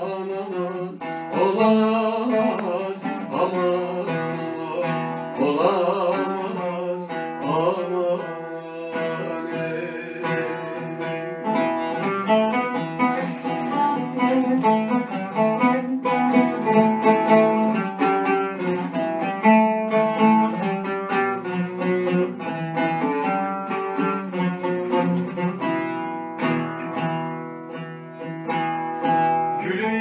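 Oud playing a Turkish folk melody in plucked notes. A man sings a wavering, ornamented line over it for the first several seconds, and the oud then carries on alone as an instrumental passage.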